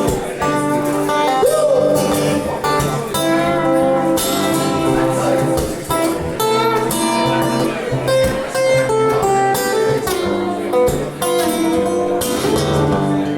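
Acoustic guitar playing an instrumental break between sung verses of a song, with chords and single notes sounding throughout.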